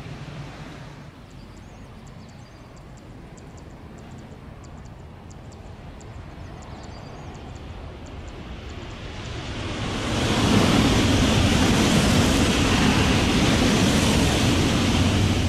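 Shinkansen bullet train passing at speed along a concrete viaduct: a rushing noise swells from about nine seconds in and stays loud as the train goes by.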